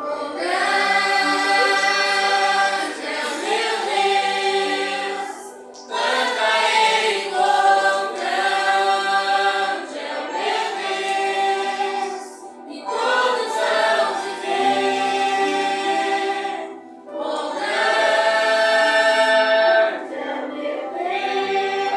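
A church youth choir singing a worship song, several voices together in long held phrases with short breaks between them.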